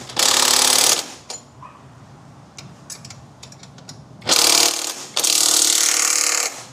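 Socket ratchet wrench ratcheting in three spells while driving in the bolts of a motorcycle luggage bracket, with light clicks of tool on metal between spells.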